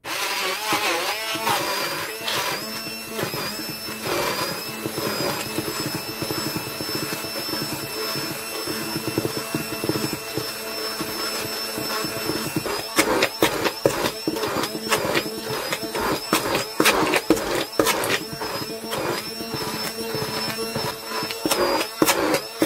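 Immersion hand blender with its blending attachment running without a break, with a steady motor whine, whipping cold cream and grated almond turrón into a thick mousse. From about halfway through, irregular clicks and knocks join in as the mixture thickens.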